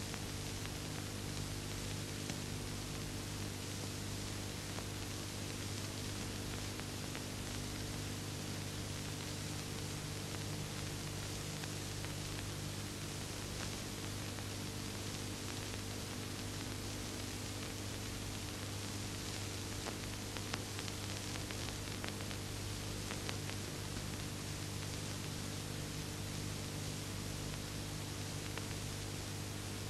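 Steady hiss and mains hum of an old film soundtrack, with a few faint clicks about two-thirds of the way through.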